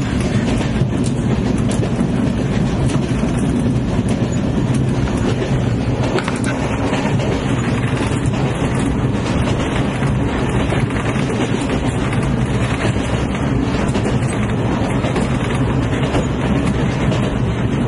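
Train running on the track: a steady, loud rumble of wheels on rails that holds evenly without building or fading.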